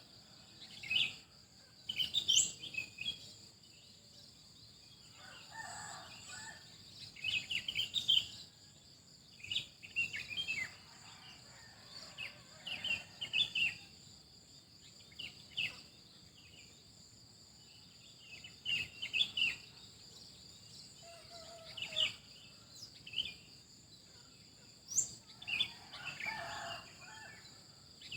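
Wild birds chirping in short, scattered bursts of high notes, with a steady high-pitched insect drone underneath.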